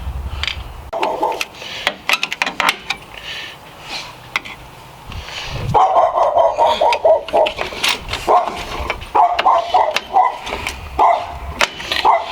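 Sharp metal clicks and clinks of hand tools on drum brake parts in the first half. About six seconds in, a dog starts barking, over and over.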